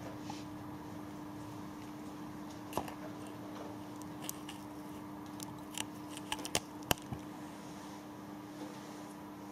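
Scattered small clicks and taps from makeup items being handled at a dressing table, with a quick cluster of sharper clicks about six to seven seconds in, over a steady low hum.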